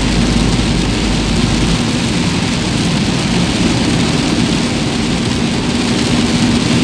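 Heavy rain pelting a motorhome's windscreen and cab, over the steady hum of its engine and tyres on the wet road.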